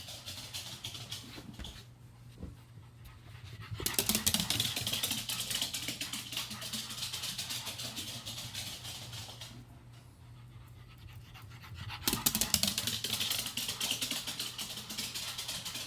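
An old dog panting fast, in bouts that pause briefly about two seconds in and again around ten seconds in.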